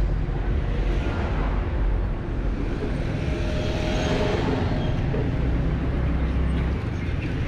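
Engine of a 149cc Kavan S scooter running at walking pace as it filters between stopped cars, slowing to a halt near the end, over the noise of surrounding city traffic and a low rumble on the microphone.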